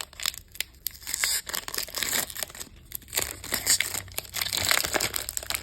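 Foil Pokémon booster pack wrapper being torn open and crinkled by hand, an irregular run of crackling and rustling.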